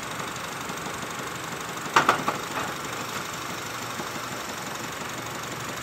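Honda Civic engine idling with a slight knock, which the owner takes for a bad connecting rod. About two seconds in there is one sharp clunk, followed by a few smaller rattles.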